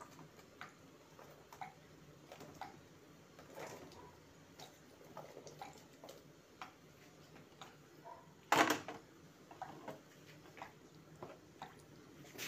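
Scattered light clicks and knocks as diced vegetables are tipped from a bowl into a pot of simmering soup, with one louder clatter about two thirds of the way through.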